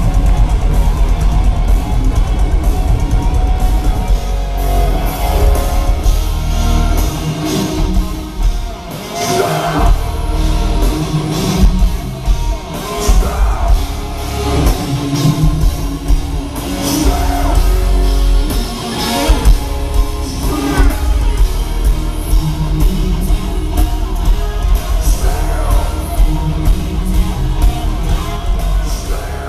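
Heavy metal band playing live: distorted electric guitars and drum kit, loud and continuous, with vocals over the middle stretch.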